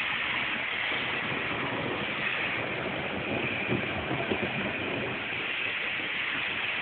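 Rain falling steadily in a thunderstorm, a constant hiss, with a few brief taps about four seconds in.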